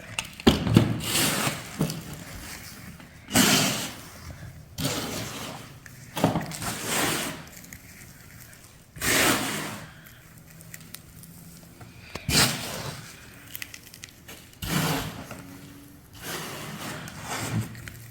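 Sand being scraped and pushed over a toy truck to bury it: a series of short scraping strokes every second or two.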